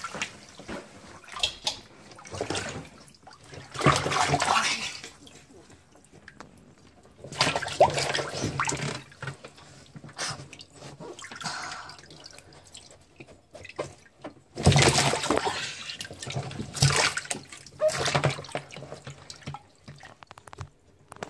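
Water splashing and sloshing in a plastic tub as a monitor lizard thrashes with a rat in its jaws, in several irregular bursts with dripping between them.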